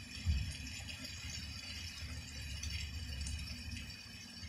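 Heavy rain falling, a steady hiss with faint patter, over a steady low rumble.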